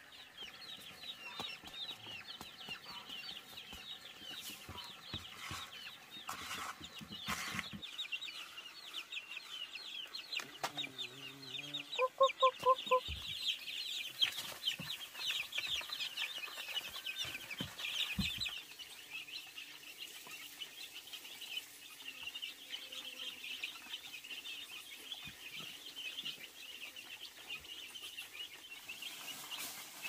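Chickens: continuous rapid, high-pitched peeping and chirping, with a short run of louder, lower clucks about twelve seconds in.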